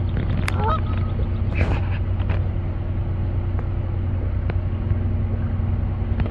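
Suzuki outboard motor running at a steady speed, pushing a pontoon boat along: an even, low engine hum over water and wind noise. A few faint clicks sound in the first couple of seconds.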